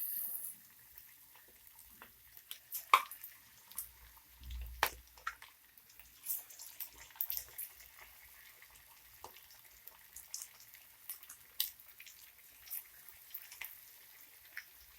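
Marinated chicken pieces frying in hot oil: scattered pops and crackles over a faint sizzle, with one dull low thump about four and a half seconds in.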